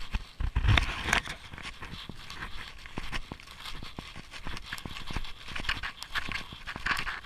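A dog panting close by, over snowshoe footsteps crunching in snow. There is a thump about a second in.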